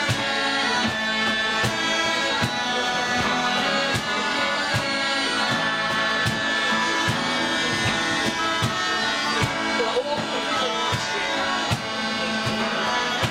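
An ensemble of Scottish smallpipes playing a traditional tune in unison over a steady drone, backed by strummed acoustic guitars keeping a regular beat and a fiddle.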